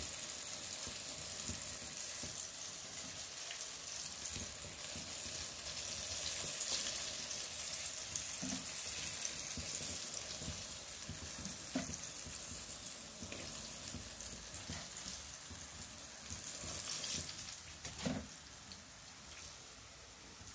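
Battered chicken feet deep-frying in hot oil, a steady sizzle with fine crackling as they finish crispy and golden brown. A few times a metal fork turning the pieces knocks lightly against the pan, and the sizzle dies down near the end.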